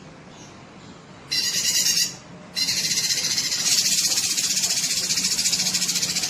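Cucak kinoi singing in rapid, harsh buzzing trills: a short burst a little over a second in, then a long unbroken trill from about two and a half seconds in.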